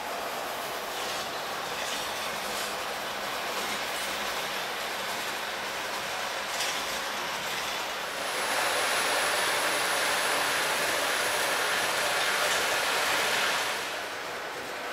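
H0-scale model freight train of tank wagons rolling along the track, a steady running hiss with a few light clicks of wheels over rail joints. For several seconds in the second half the running noise grows louder, with a faint high whine, then drops back.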